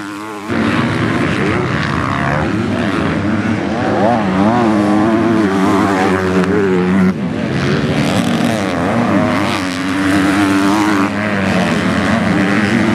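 MX2 motocross bike engines revving hard on the track, their pitch rising and falling with the throttle. The sound changes abruptly about half a second in and again around seven seconds in.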